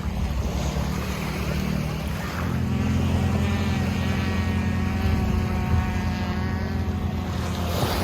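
An engine running steadily, its hum growing stronger about two and a half seconds in.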